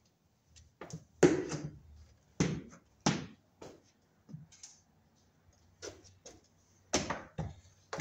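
Irregular knocks and clatter of tools being picked up and moved around, about half a dozen separate clunks, the loudest about a second in.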